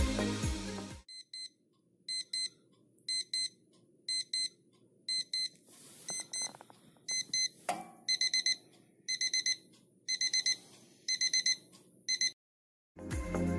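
Digital alarm clock beeping: short high-pitched beeps in pairs, which turn into quicker groups of four about eight seconds in, with a single knock just before. The beeping stops abruptly near the end as a hand presses down on top of the clock.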